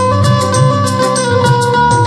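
Background music with a steady beat: held sustained tones over a repeating bass pulse and regular light percussion.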